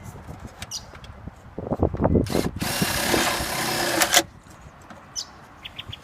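Cordless drill driving a screw: a short blip of the motor about two seconds in, then a steady run of about a second and a half that stops abruptly. A few dull knocks come before it.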